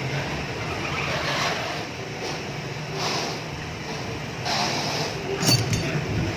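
Auto repair shop background noise with soft hissing swells, and one sharp metallic clink about five and a half seconds in.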